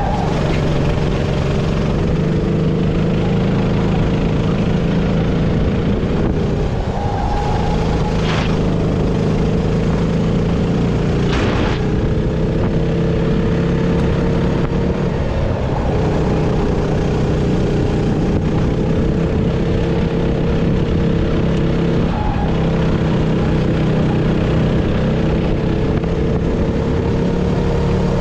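Sodi RT-8 rental kart's single-cylinder four-stroke engine running hard, heard from on board the kart. The note is steady and dips briefly a few times as the throttle is lifted for corners, with two brief sharp noises about eight and eleven seconds in.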